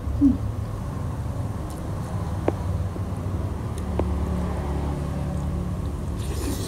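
A steady low background rumble, with two faint clicks of utensils against a glass bowl about midway and a slurp of noodle soup at the very end.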